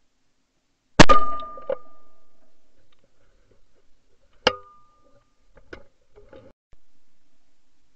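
A shotgun shot at a pheasant about a second in, taken close up by a barrel-mounted ShotKam camera, sharp and very loud with a metallic ring after it. About three and a half seconds later a weaker sharp crack with the same ring, then a few light clicks.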